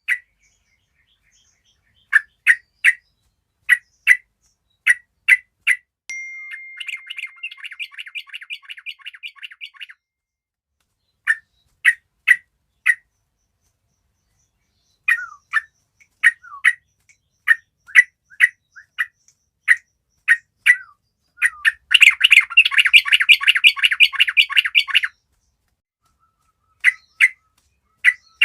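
A group of yellow-vented bulbuls calling: short sharp chirps spaced about half a second to a second apart, a fast chattering run about six seconds in, and a louder dense chatter near the end.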